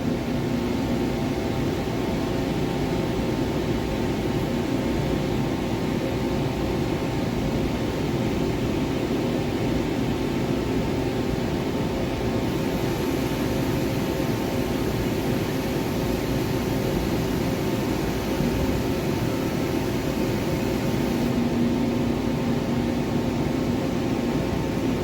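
Forest-Line MajorMill 5-axis CNC gantry mill running under power, its spindle turning and the Z-axis head traversing: a steady machine hum with several held tones. A faint high hiss joins about halfway through and stops a few seconds before the end.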